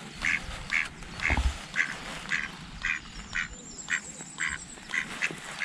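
A duck quacking over and over in an even series, about two quacks a second, with a single low thump about a second and a half in.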